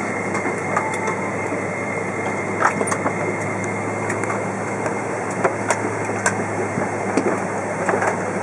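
Cabin noise inside a Boeing 777-200 taxiing slowly onto its stand: a steady engine and air-conditioning hum with a thin high whine, and scattered clicks and knocks from inside the cabin.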